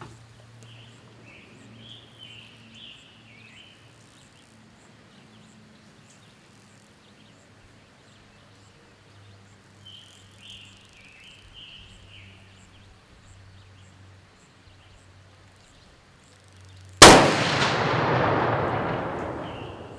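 A single shot from a custom muzzle-loading rifle about 17 seconds in: one very loud crack with a long echo fading away over about three seconds. Before it, birds chirp now and then over a faint low hum.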